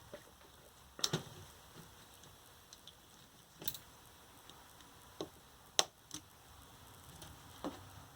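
Hand tools clicking and knocking against the circuit board and plastic of a lithium-ion scooter battery pack as the board is worked loose: about six short, sharp clicks spread a second or so apart, the sharpest a little past the middle.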